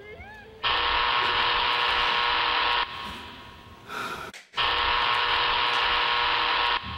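Electric door buzzer sounding twice, each buzz about two seconds long and flat and steady, starting and stopping sharply, with a short gap between: a visitor at the door.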